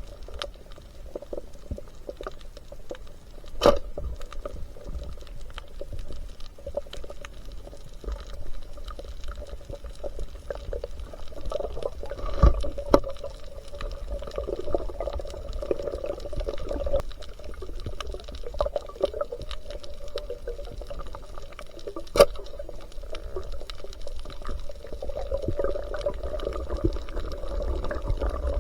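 Water sloshing and gurgling, muffled, over a steady low rumble, with three sharp clicks spread through it.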